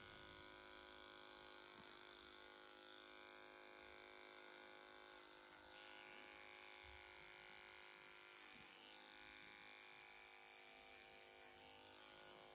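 Electric horse clippers running with a faint, steady buzz while trimming the hair on a horse's muzzle and chin.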